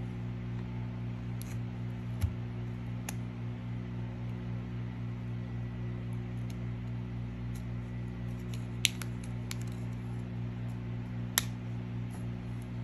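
A few sharp, small clicks of a thin steel pry spatula catching and snapping along the edge of a Samsung Galaxy A70's frame as the cover is worked loose, the loudest about two, nine and eleven seconds in. Under them, a steady low hum.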